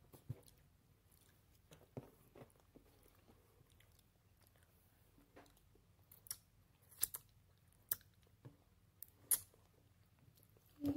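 A person eating close to the microphone: quiet chewing broken by short, sharp mouth and lip smacks every second or so, with fingers being sucked clean partway through.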